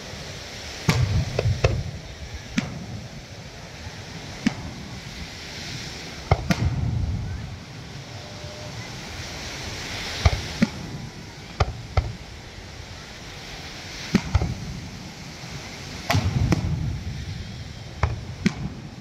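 Aerial fireworks bursting: many sharp bangs at irregular intervals, some in quick clusters of two or three, several followed by a low rumble, over steady background noise.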